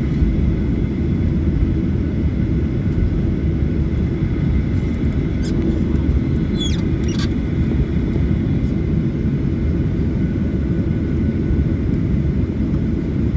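Cabin noise inside a Boeing 737-900ER airliner: a loud, even rumble of engines and airflow, with a few faint, brief clinks about halfway through.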